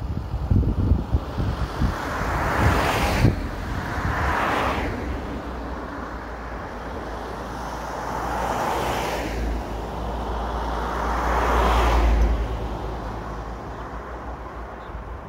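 Vehicles, among them a truck and a Toyota Hilux pickup, driving past close by on a paved road, about four passes in turn, each swelling with tyre and engine noise and then fading. Wind buffets the microphone during the first few seconds.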